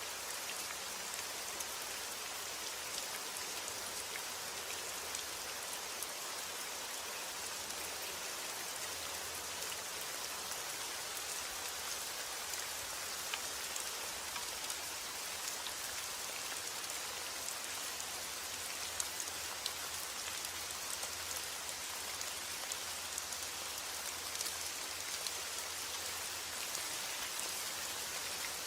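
Steady rain falling on a surface, a dense even hiss with individual drops ticking through it.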